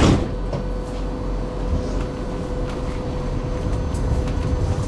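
Interior of a city tram: a sharp knock at the very start, then the steady hum of the tram's equipment with one constant tone, and a low rumble that grows louder near the end as the tram moves off.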